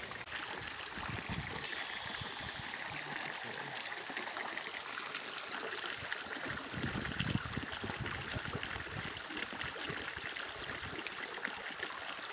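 Shallow mountain stream running and babbling over a rocky bed, a steady rush of water, with a few soft low bumps about a second in and near the middle.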